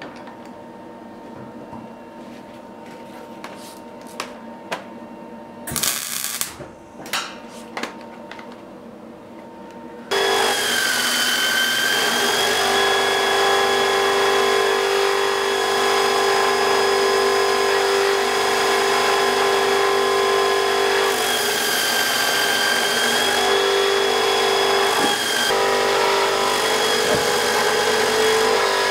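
A few sharp metal clicks and knocks at a bench vise, then about ten seconds in the loud, steady running of a surface grinder cuts in: a motor-and-wheel whine with a hiss as the abrasive wheel grinds a steel block held on the magnetic chuck.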